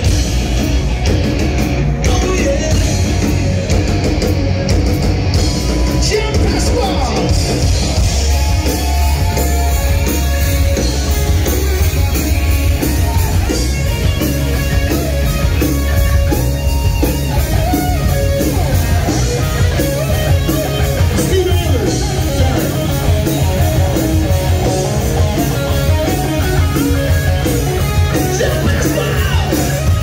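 Live rock band playing loud: electric guitars over bass and drum kit, with some singing.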